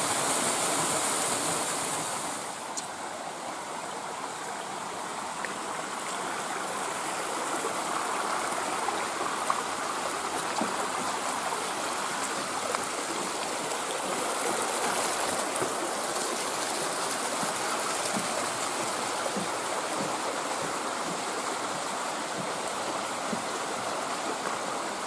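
Rushing water of a waterfall and its stream, a steady hiss. It drops a little in level about two seconds in, then runs on evenly.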